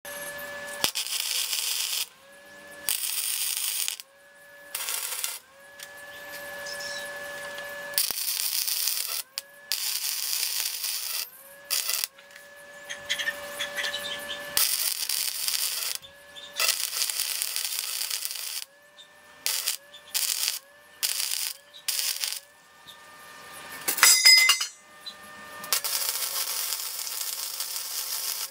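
Wire-feed (MIG) welder tack-welding 2x2 steel square tubing: a run of crackling, sputtering arc bursts, some brief tacks and some longer beads of several seconds, each with a steady whine under it. A sharp loud clank comes a few seconds before the end.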